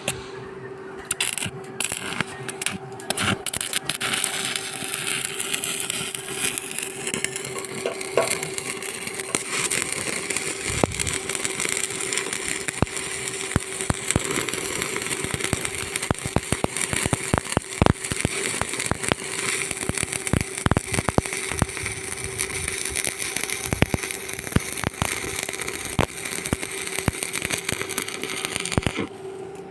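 Electric arc welding: a dense, sputtering crackle over a steady hum that cuts off suddenly near the end.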